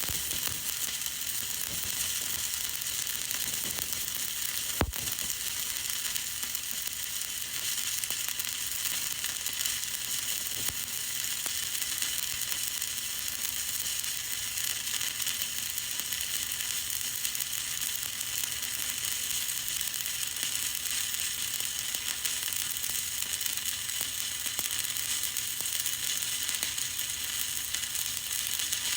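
Stick (SMAW) welding arc burning a 7018 electrode: a steady, even crackling hiss, with one sharp click about five seconds in.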